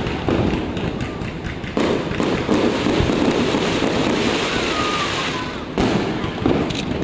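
Fireworks going off: several sudden booms of bursting shells over a continuous crackling rumble.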